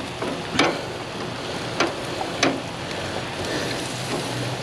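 Steak and chicken strips sizzling on a grill, with a few sharp clicks of metal tongs against the meat and grate as pieces are turned.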